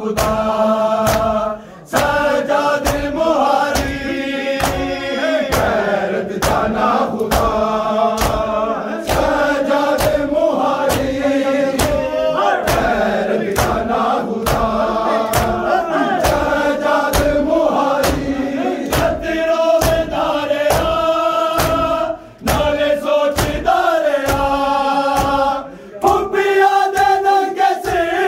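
A crowd of men chanting a nauha in unison while beating their chests (matam), the hand strikes landing in a steady, even rhythm under the chant. The chant and beating break off briefly three times.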